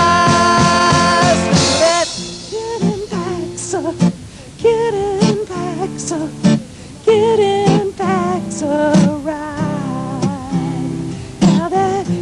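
Instrumental break in a rock song: the full band plays for about two seconds, then the texture thins to a guitar playing wavering, bent notes over bass and drum hits.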